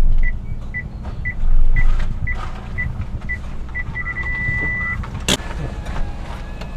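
Car's reverse parking sensor beeping about twice a second, quickening and then turning into one steady tone: the sign that the bumper is very close to the obstacle behind. A sharp click follows soon after, over the low running of the idling engine.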